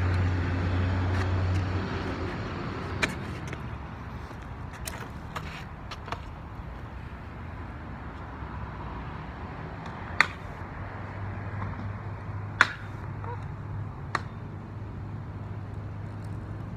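Sharp clacks of a stunt scooter's deck and wheels striking pavement, six or so spread out, the two loudest past the middle, over a steady hum of road traffic and a running engine.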